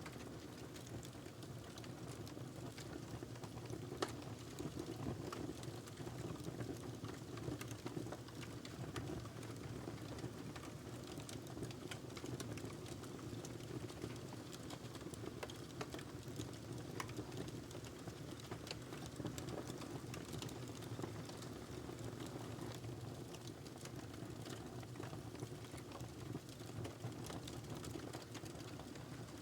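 Wood logs burning in a fireplace: a steady low rush of flame with frequent small crackles and pops, one sharper pop about four seconds in.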